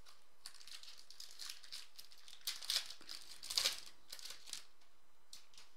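Foil wrapper of a Topps Chrome trading-card pack being torn open and crinkled, a run of short crackles that are loudest about halfway through.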